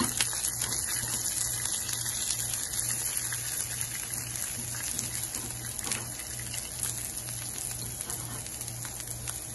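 Hot oil sizzling steadily in a frying pan as freshly added grated coconut and green chillies fry with fennel seeds, cumin and black pepper.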